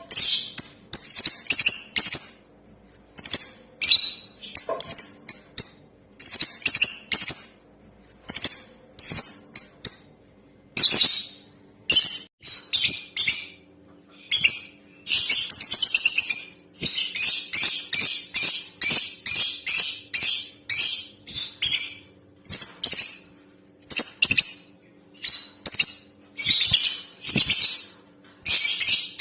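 Female lovebird calling in rapid, high-pitched bouts of chirps, about one bout a second, with a longer unbroken run of chatter about halfway through. A faint steady hum lies underneath.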